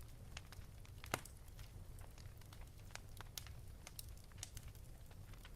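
Log fire crackling with irregular small pops and one louder snap about a second in, over a low rumble.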